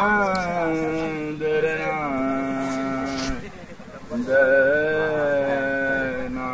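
A voice holding long, drawn-out wailing notes that waver and slide downward, in two long stretches with a short break just after the middle.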